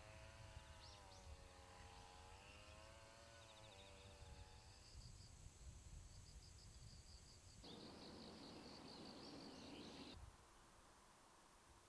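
Faint outdoor ambience of insects chirping in rapid, repeated high pulses, joined about eight seconds in by a louder hissing buzz that cuts off abruptly about two seconds later. A faint wavering hum sits under the first few seconds.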